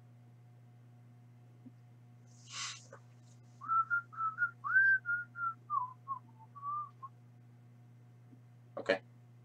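A person whistling a short tune, about a dozen quick notes that drift lower toward the end, after a breathy rush. A sharp click near the end.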